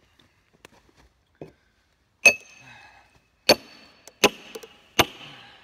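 A sledgehammer striking a steel splitting wedge driven into a log four times, each blow a sharp metallic clink with a short ring, with crackling from the wood between the later blows as the log splits open.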